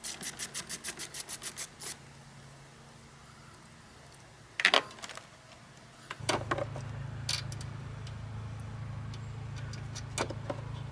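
Socket ratchet clicking quickly, about seven clicks a second for about two seconds, as a battery terminal bolt is undone. A single sharp metallic clink follows near the middle, and a low steady hum comes on about six seconds in, with a few light knocks over it.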